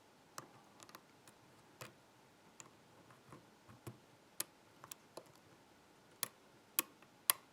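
Small metal clicks of a Peterson thin hook lifting and setting pins inside a six-pin Kryptonite padlock under light tension. The clicks are sharp and irregularly spaced, with a few louder ones near the end.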